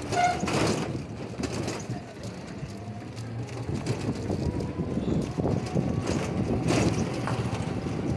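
Ride noise from a small open vehicle moving along a road: a steady low rumble with rattles and knocks, and a faint rising whine a couple of seconds in.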